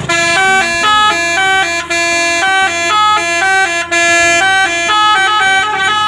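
Basuri multi-tone telolet bus horn playing a rapid melody, a continuous run of short pitched notes stepping up and down.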